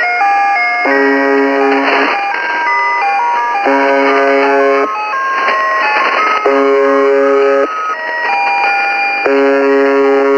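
Shortwave reception of UVB-76, 'The Buzzer', on 4625 kHz upper sideband: four harsh buzz tones about a second long, repeating roughly every three seconds. A jamming electronic toy melody of bright stepping beeps plays over them through static hiss, with the sound cut off above about 4 kHz.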